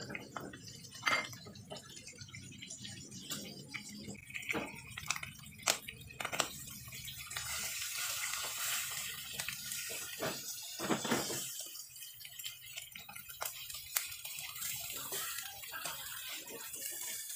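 Salmon steaks sizzling in a nonstick wok, frying with no added oil, with scattered clicks and scrapes of a silicone spatula against the pan. The sizzle grows louder about seven seconds in.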